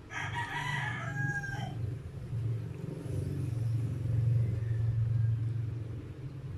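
A rooster crows once at the start, a single call about a second and a half long. A steady low rumble runs underneath and grows louder about halfway through.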